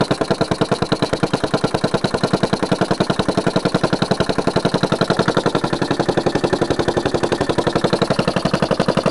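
A 25 cc weed-whacker engine converted to a single-acting uniflow air engine, running on about 30 psi of compressed air. Its microcontroller-timed solenoid valves let air in and out once per turn, giving an even, fast train of sharp puffs at a steady speed.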